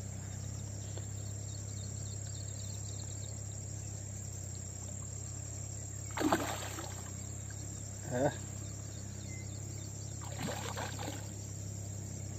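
Steady high insect chirring over a low hum, broken by three short louder sounds about six, eight and ten to eleven seconds in.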